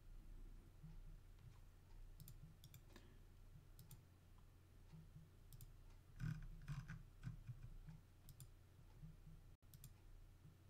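Faint, scattered computer mouse clicks, a few in quick succession about six seconds in, over quiet room tone with a low steady hum.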